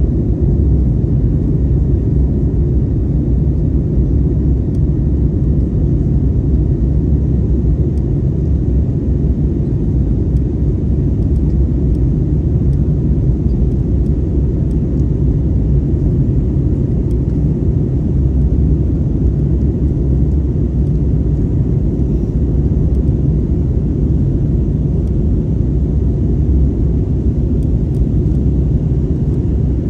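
Airbus A320neo cabin noise heard from a window seat during the climb after takeoff: a steady, deep rumble of engines and airflow.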